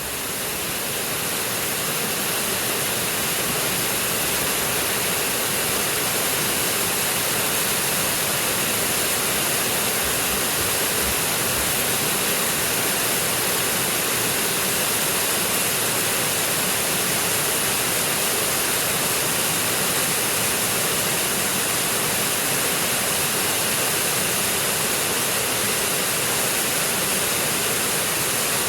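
Forest stream flowing: a steady, even rush of water over rocks, fading in at the start.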